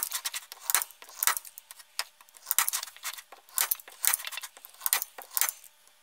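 Hand stapler driving 3/8-inch staples through thin aluminum flashing into a wooden frame: sharp metallic snaps, about two a second and unevenly spaced.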